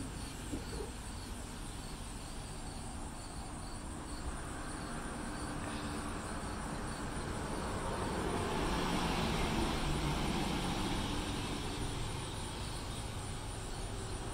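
Background noise of a vehicle passing, swelling about seven seconds in and fading again by about twelve seconds, with faint regular high chirps in the first few seconds.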